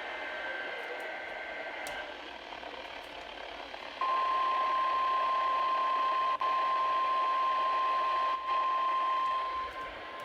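An emergency-alert broadcast through a weather radio receiver, over radio hiss. For about the first two seconds the two-tone warble of the SAME digital header is heard. About four seconds in, the steady single-pitch 1050 Hz weather radio warning alarm tone starts and holds.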